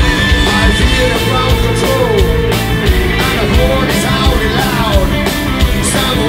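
Live rock band playing loudly: electric guitar, bass guitar and a drum kit, with regular drum and cymbal hits and notes that glide up and down in pitch.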